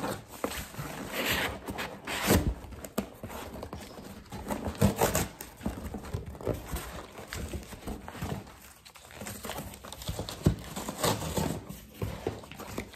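A cardboard shipping box being opened by hand: irregular knocks, scrapes and rustles of cardboard and paper packing.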